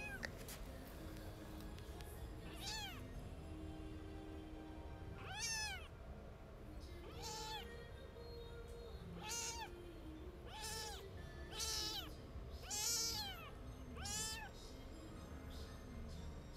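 Young kitten mewing repeatedly: about nine high, thin mews, each rising and falling in pitch, spaced out at first and coming every second or so in the second half. The owner takes the mewing for the kitten seeking affection.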